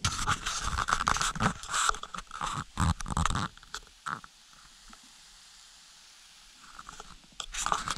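Water-activated heating pad of a self-heating meal kit, hissing and crackling as it steams under the meal tub. The crackles come thick in the first three and a half seconds, die down, and pick up again near the end.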